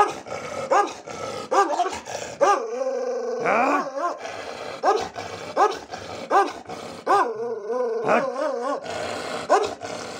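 Dog barking over and over, about one bark every three-quarters of a second, with two longer, wavering calls among the barks.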